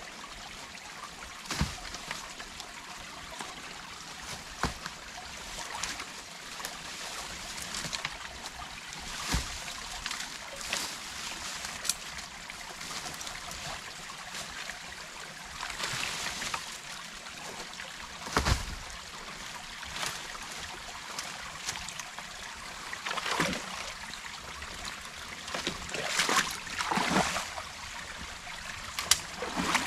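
Water trickling and running through a beaver dam, with scattered splashes and knocks as sticks and debris are pulled out of the dam and thrown aside; the loudest comes about two-thirds of the way in, with a cluster near the end.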